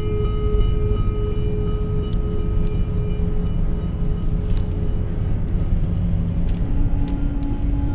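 Improvised synthesizer drone from small handheld synths heard through their tiny loudspeakers: a few held tones, moving to a lower note near the end, over a steady low rumble.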